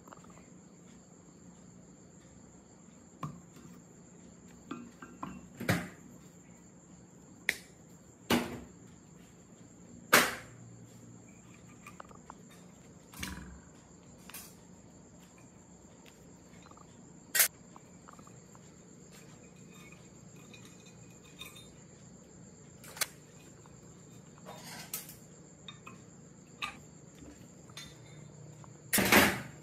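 Irregular knocks and clinks of hand tools against metal pump parts, a dozen or so sharp hits with uneven gaps. The loudest come about ten seconds in and at the very end. A steady high whine sits behind them.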